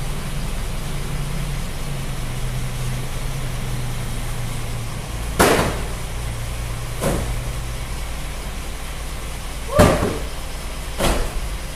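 Cartons of engine oil being shifted and set down inside a truck's metal cargo box, four dull thumps spread over the last half, over a steady low engine-like hum that stops about eight seconds in.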